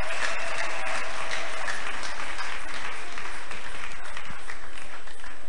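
An audience applauding together, many hands clapping at once; the clapping thins out and dies away near the end.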